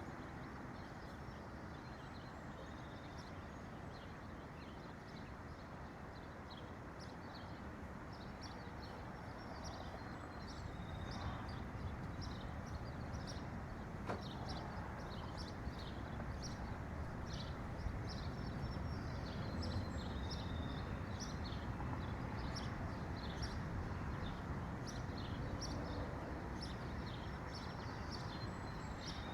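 Many small songbirds chirping in quick short high notes, growing busier about a third of the way in, over a steady low background rush. A single sharp click about halfway through.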